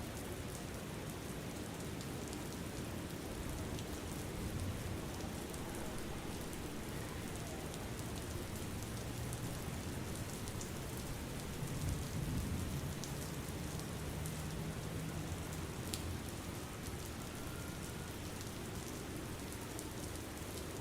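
Steady rain falling, an even hiss of drops, with a low rumble that swells and fades in the middle, loudest about twelve seconds in.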